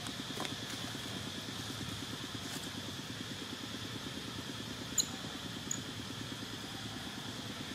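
A small engine idling steadily with a fast, even low pulse, under a steady high-pitched buzz. One sharp click sounds about five seconds in.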